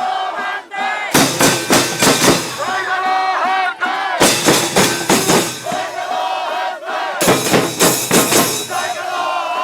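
A crowd shouting and chanting over beating drums. The sound cuts abruptly to a new loud stretch about a second in, at about four seconds and at about seven seconds.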